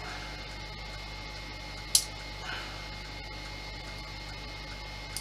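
Steady electrical hum, with one sharp click about two seconds in and a faint tick near the end, as small hard parts or tools are handled.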